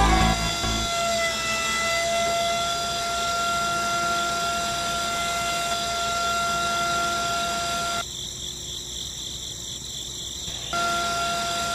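Small DC motor of a toy string winch whining steadily as it winds in the string and pulls a model tractor up onto a trolley, rising a little in pitch as it gets going. It stops about eight seconds in, then runs again briefly near the end.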